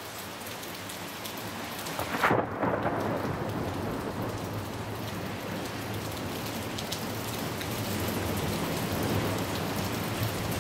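Heavy rain falling steadily during a thunderstorm, with one loud sudden crack of thunder about two seconds in.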